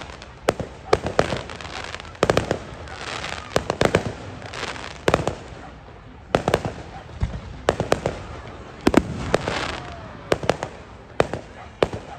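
Fireworks display: aerial shells bursting with sharp bangs at irregular intervals, often several in quick succession, over a continuous crackle.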